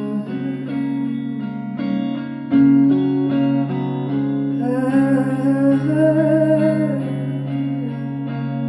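Live music: a guitar plays sustained chords while a woman sings long held notes, the voice rising most clearly about halfway through.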